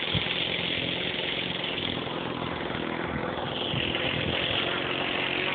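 Engine of an RC pylon racer model plane buzzing steadily as it comes in fast to land, its pitch dropping about halfway through.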